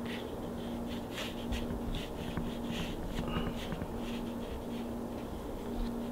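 Soft, irregular rustling and scraping of hands rolling a thin clay slab into a tube over a cardboard work surface, with a low hum underneath that comes and goes.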